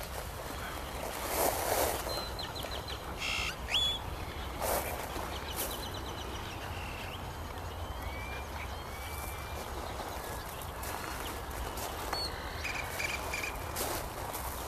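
Small birds chirping in short rapid trills and brief calls over a steady low rumble, with a few short noisy bursts.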